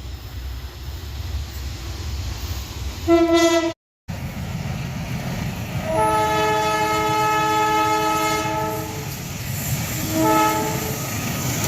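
Train horn sounding the semboyan 35 signal of Indonesian railways: a short blast about three seconds in, then, after an abrupt cut, a long blast of about three seconds followed by a short one. A low rumble runs underneath.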